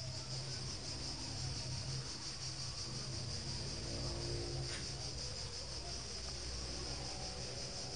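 Steady low hum with a high hiss beneath it: background room tone, with no distinct event.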